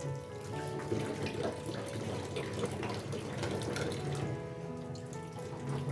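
Kitchen tap running into a steel sink while dishes and a glass are rinsed by hand, water splashing over the hands; background music plays underneath.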